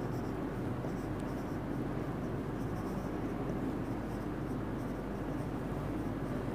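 Marker pen writing on a whiteboard in short strokes, faint over a steady background hiss and low hum.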